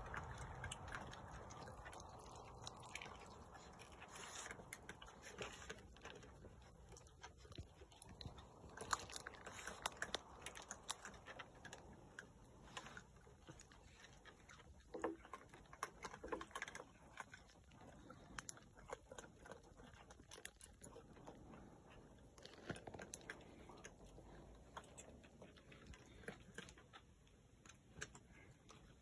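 A mother raccoon and her young eating food scattered on a deck, heard as faint, irregular clicks of chewing.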